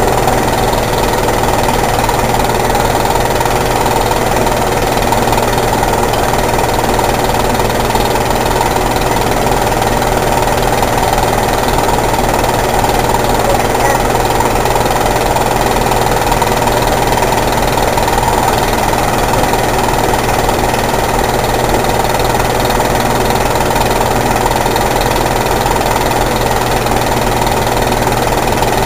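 Fire truck's engine idling steadily, loud and unchanging.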